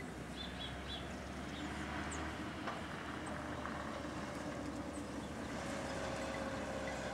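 Steady low hum of a distant motor, building slightly and taking on a steadier tone near the end, with a few faint bird chirps about a second in.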